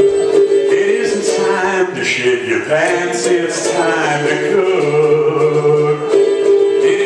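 Live song: a man singing over steady, held electronic keyboard chords.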